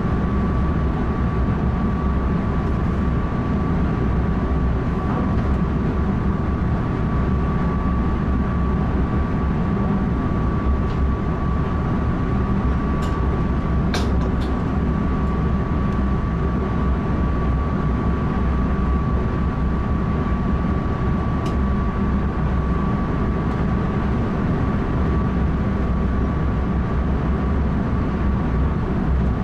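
Running noise of an NS ICM electric multiple unit heard from the driver's cab: a steady rumble with a thin steady high tone over it, and a few sharp clicks near the middle and once more later on.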